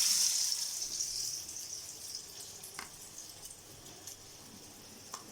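Marinated fish pieces sizzling as they go into hot oil for deep frying: a loud hiss that fades gradually as the oil settles, with a few sharp pops of spitting oil.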